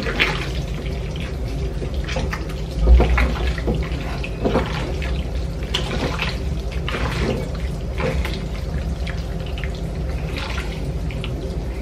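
Bare hands squishing and turning raw chicken pieces in a wet marinade in a glass bowl: irregular squelching and sloshing, with a dull thump about three seconds in, over a steady low hum.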